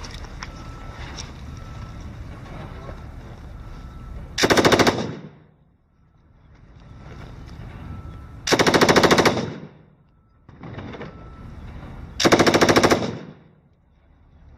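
Belt-fed machine gun firing three short automatic bursts, each under a second long and a few seconds apart. Between the bursts there is a faint steady hiss.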